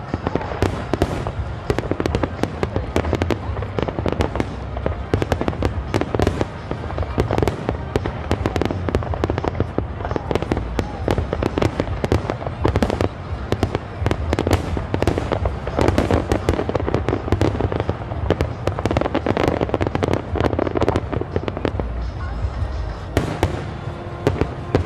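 Aerial fireworks display in a dense barrage: sharp cracks and bangs many times a second over a constant low rumble of shell bursts.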